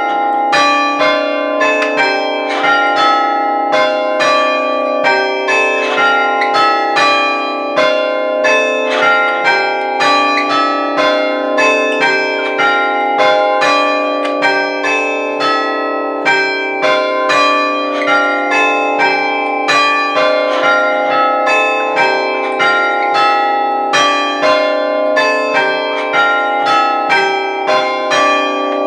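Six church bells chimed in changes, each bell struck by a hammer of an Ellacombe apparatus while it hangs still. The notes follow one another in a steady, even rhythm, several a second, each still ringing as the next is struck.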